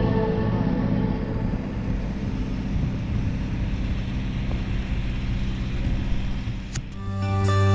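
A steady engine drone with a rushing noise. Background music fades out in the first second and new music with plucked notes starts near the end.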